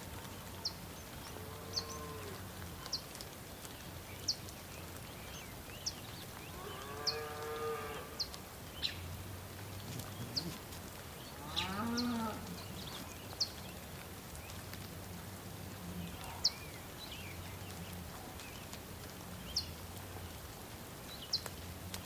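Cattle mooing several times on a farm, the strongest calls about a third and halfway through, while a bird repeats short, sharp high chirps every second or two.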